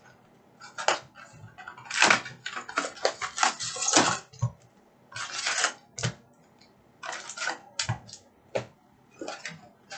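Packs of hockey trading cards and their cardboard hobby box being handled: irregular crinkling and rustling of the plastic pack wrappers, with sharp taps and clicks as the packs are pulled out and stacked.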